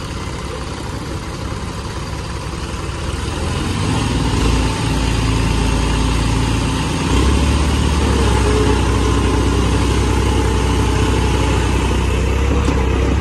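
Diesel engines of a New Holland 3630 and a John Deere 5210 tractor pulling against each other in a tug-of-war. The engine note grows louder and deeper about four seconds in and again about seven seconds in, as the engines come under full load, then holds steady.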